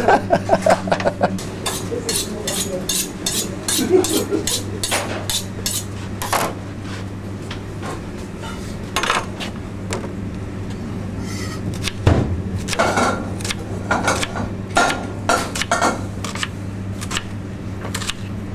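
Kitchen prep clatter: a knife knocking quickly and repeatedly on a cutting board for several seconds, then scattered knocks and clinks of steel pans and utensils, over a steady low hum.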